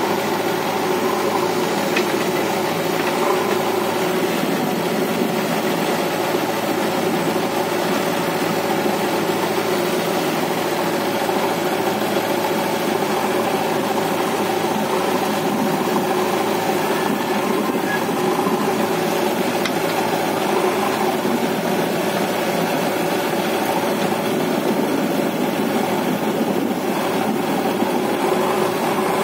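Diesel engines of a JCB backhoe loader and a John Deere tractor idling steadily.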